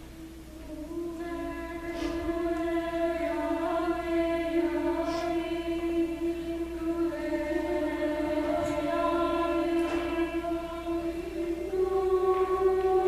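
Women's choir singing sustained chords over a low held drone note, swelling in about a second in and growing louder, with the upper voices moving higher near the end.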